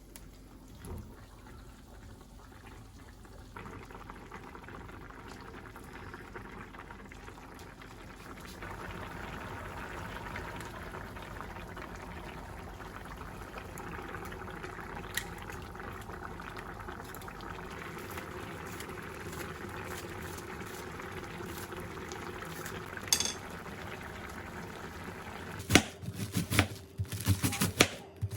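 A pot of liquid bubbling steadily at the boil, growing louder over the first several seconds as it comes up to a full boil. Near the end, a knife chops on a cutting board in a quick run of sharp strikes.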